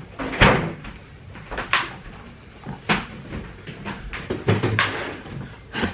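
A run of separate sharp household knocks and clunks, about eight of them scattered irregularly, like cupboard doors and objects being handled.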